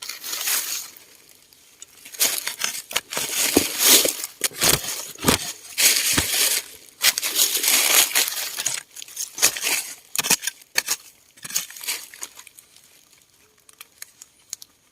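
Digging and scraping through dry leaf litter and soil, with irregular crunching and crackling scrapes that pause briefly now and then.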